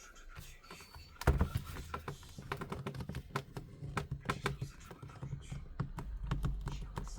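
Plastic clips of a Samsung Galaxy Tab A T580's back cover clicking and snapping as a plastic pry tool is worked around the edge: a louder snap about a second in, then an irregular run of small clicks.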